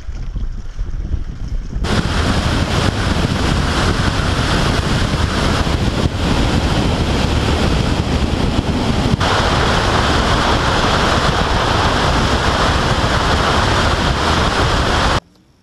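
Bass boat running fast across choppy open water: wind buffeting the microphone and water rushing past the hull in a loud, steady roar. It builds about two seconds in and cuts off suddenly near the end.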